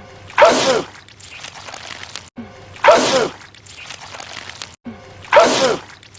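A man sneezing loudly three times, about every two and a half seconds, the same sneeze repeated over and over.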